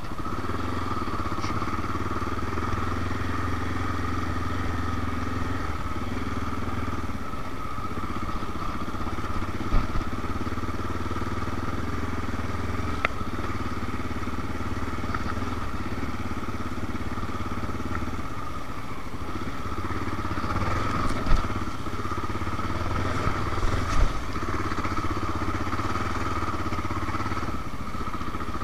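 Honda XR650L's single-cylinder four-stroke engine running steadily as the dirt bike rides a rough trail, with a few sharp knocks about 10, 21 and 24 seconds in.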